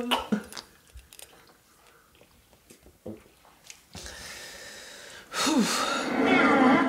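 People drinking after a toast: a few small sips, sniffs and glass clicks, then about five seconds in a loud, breathy exclamation that falls in pitch as someone reacts to the strong drink. Music starts just before the end.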